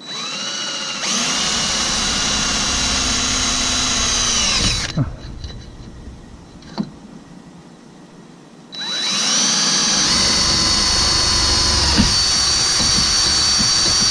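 Cordless DeWalt drill boring a hole through a metal tube of a boat's top frame. The motor spins up and runs for about five seconds, stops, then starts again about nine seconds in and keeps running.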